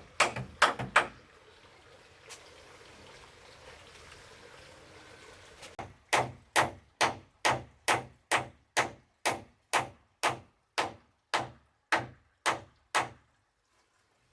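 Hammer blows on wood, sharp and evenly paced at about two a second. There are three blows at the start, then a pause with faint background hiss, then a steady run of about sixteen blows from about six seconds in, stopping near the end.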